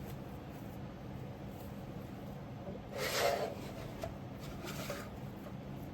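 Hands handling and pressing pieces of dough, with one soft rubbing rustle about three seconds in, over a steady low background hum.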